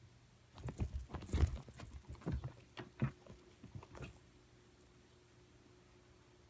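A cat thrashing about: an irregular run of thumps and knocks that starts about half a second in and dies away after about four seconds.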